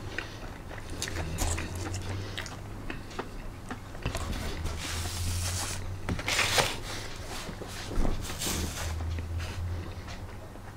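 A person biting and chewing Cheetos-coated boneless chicken wings, with many small wet clicks and a few louder hissy sounds in the middle.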